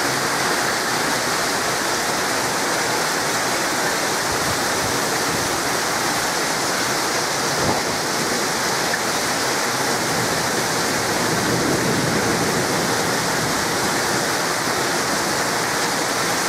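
Heavy rain pouring down steadily during a thunderstorm, an even rushing hiss.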